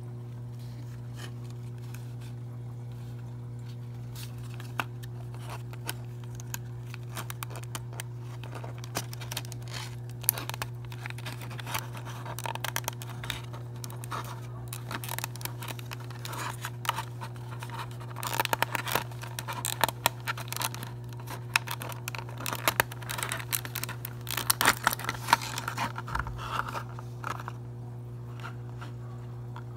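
Thin clear plastic packaging of a small die-cast model airliner being handled and opened: crackling, clicking and scraping plastic. The sounds are sparse at first, grow busy from about twelve seconds in, and stop shortly before the end, over a steady low hum.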